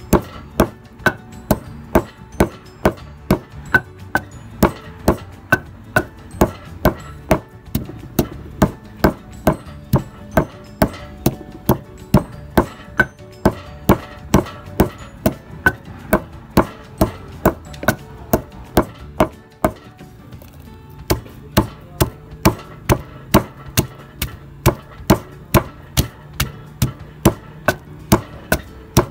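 Wooden pestle pounding chopped lemongrass paste in a clay mortar: steady, even thuds, about two to three strokes a second, with a short break about two-thirds of the way through.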